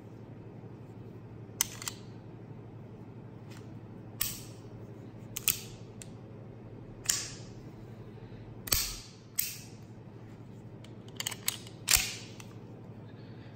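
Stainless steel Walther PPK/S .380 ACP pistol being worked by hand: the slide is racked and snaps forward, giving about ten sharp metallic clacks with a short ring, some singly and some in quick pairs, the loudest near the end.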